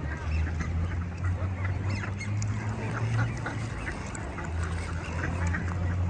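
A flock of ducks calling on the water, with many short, overlapping quacks throughout, over a steady low rumble.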